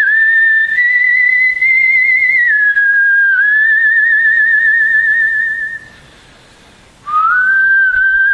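A whistled melody: long held notes with vibrato, stepping up and down between a few pitches. It breaks off for about a second a little past the middle, then starts again.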